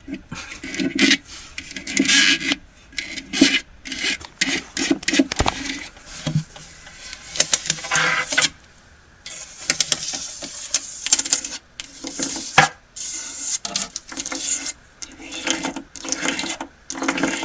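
Close-up scratching, rubbing and tapping on a handheld object, with many irregular sharp clicks and scrapes.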